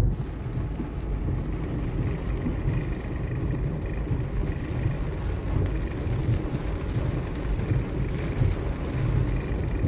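Car driving slowly through deep floodwater, heard from inside the cabin: a steady low rumble of the running engine under the rush of water pushed ahead of the front of the car.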